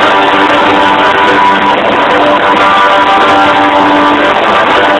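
Live hard-rock band playing loudly, electric guitar to the fore, as heard from the arena crowd. The audience recording is steadily loud and overloaded, with a poor, dull sound.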